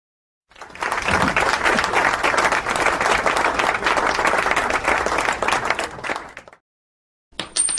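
Crowd applause sound effect: many hands clapping, starting about half a second in, running steadily for about six seconds and then fading out.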